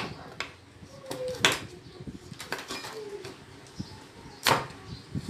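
Kitchen knife cutting a carrot into batons on a wooden chopping board: a handful of sharp knocks of the blade against the board, irregularly spaced.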